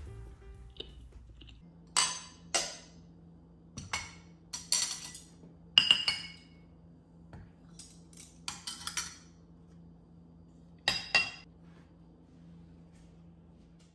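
Ceramic plates, bowls and cutlery clinking as they are stacked to clear a table: a series of sharp clinks in small clusters, over a faint steady low hum.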